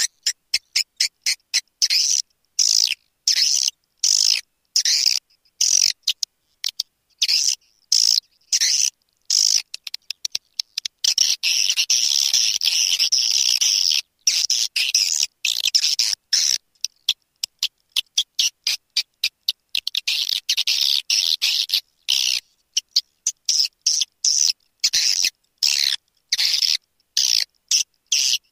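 Recorded swiftlet calls used as a lure to draw swiftlets into a nesting house: rapid, high-pitched chirps in short bursts with abrupt silent gaps between them, and longer unbroken stretches of twittering about eleven and twenty seconds in.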